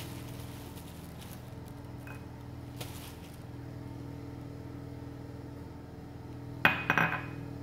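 Sugar-coated cashews dropped into a glass bowl, giving a few light clicks and then a sharp cluster of clinks near the end. A steady low hum runs underneath.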